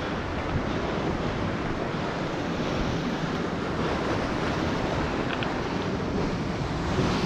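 Ocean surf washing against a rocky shore, a steady wash of water noise, with wind buffeting the microphone.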